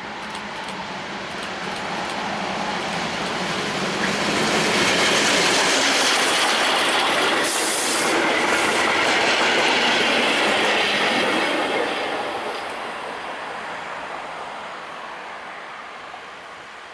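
Passenger train hauled by steam locomotive 555.3008 passing close by: the running noise of the wheels on the rails grows as it approaches, stays loud for several seconds while the coaches go past, with a brief hiss about halfway, then falls away as the train leaves.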